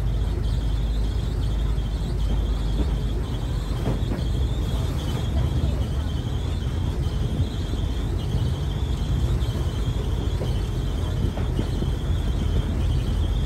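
Open-top rail cart running along the track: a steady low rumble from the moving cart and its wheels on the rails, with a thin high whine that wavers up and down throughout.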